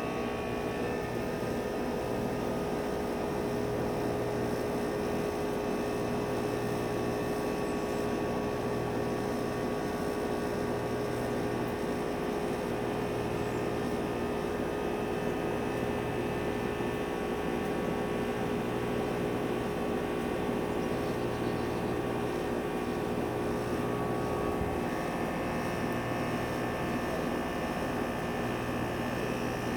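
Heil Quiet Comfort outdoor air-conditioner/heat-pump unit running steadily: the scroll compressor and the condenser fan motor make a low hum that swells and fades every couple of seconds. It is running quietly.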